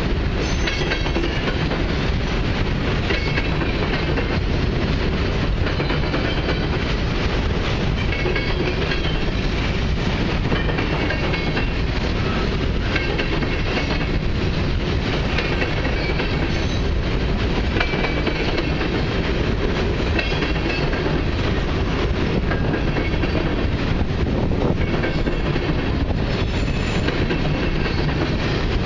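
Union Pacific freight train of covered hopper cars rolling past at steady speed. Its steel wheels make a continuous rumble and clatter over the rails, with a clickety-clack from the joints.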